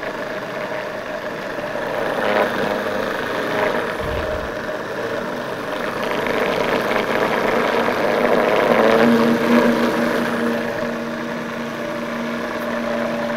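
Vitamix blender motor running steadily on its lowest speed while olive oil is poured into the spinning berry-vinegar purée to emulsify it into a dressing. The whir swells louder for a few seconds about two-thirds of the way through.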